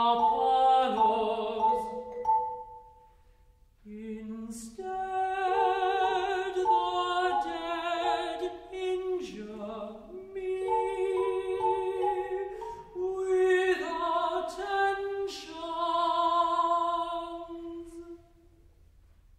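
Tenor singing an art song in an operatic style, with wide vibrato on held notes. The phrases break off for about a second near the start, resume, and the singing stops about a second before the end.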